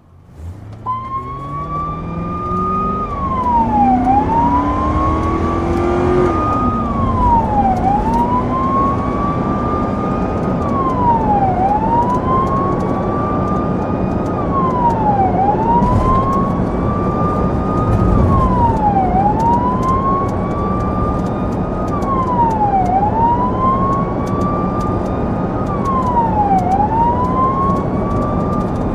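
Police car siren wailing in repeated cycles, each a slow rise in pitch followed by a quick drop, about every three and a half seconds. Underneath, the car's engine revs up over the first several seconds as the car pulls away, then runs steadily.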